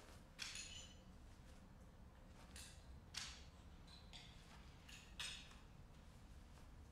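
A cloth apron being folded by hand: a handful of faint, brief rustles and light clinks against otherwise near silence.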